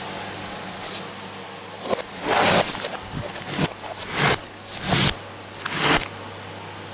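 Sticky cheesecake batter and chocolate mess being handled and scraped on a kitchen counter, played backwards: a series of short, rough scrapes and squishes over a steady low hum.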